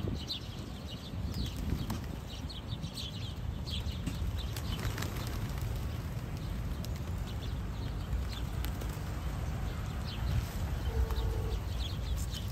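Small flock birds, house sparrows, chirping in short high notes, busiest in the first few seconds and again near the end, while pigeons' wings flap as several take off around the middle. A steady low rumble runs underneath.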